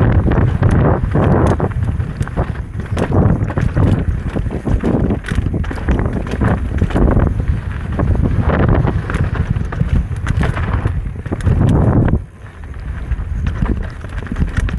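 Electric mountain bike running down a rough dirt trail: tyres rumbling over the ground, with a constant clatter of knocks from rocks, roots, suspension and chain, and wind buffeting the microphone. The noise eases briefly about twelve seconds in.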